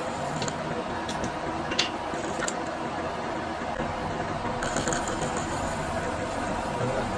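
Milling machine running steadily, its arbor-mounted disc cutter cutting teeth into a Teflon (PTFE) bevel gear blank, with a couple of sharp ticks about two seconds in.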